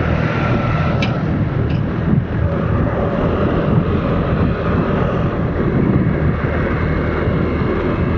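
Yamaha Aerox scooter's engine running steadily under way, with wind rushing over the rider's microphone. Two brief ticks at about one and two seconds in.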